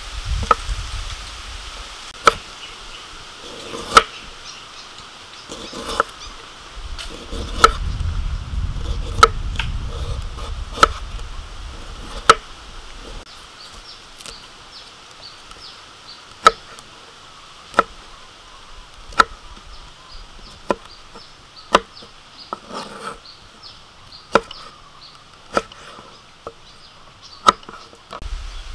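Kitchen knife cutting a head of broccoli into florets on a wooden chopping board: a sharp knock each time the blade comes down on the board, about one every one and a half seconds.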